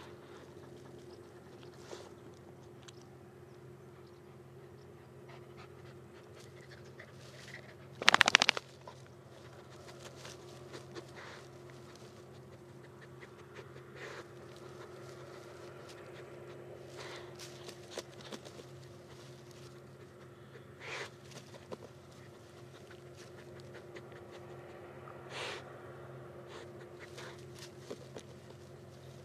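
A Jack Russell terrier panting over a steady low hum. A loud, short burst of noise comes about eight seconds in.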